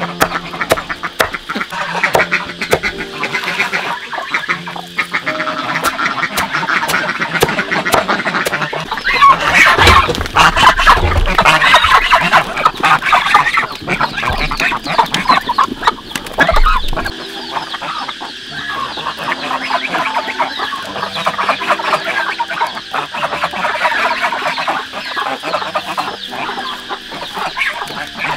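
A flock of chickens clucking and calling over one another, with a louder, busier stretch about a third of the way in that carries a low rumble.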